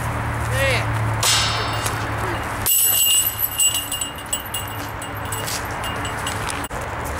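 Disc golf putt striking the hanging metal chains of a disc golf basket: the chains jingle and rattle as the disc falls into the basket, loudest around three seconds in.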